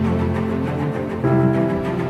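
Instrumental background music with held chords that change about a second in.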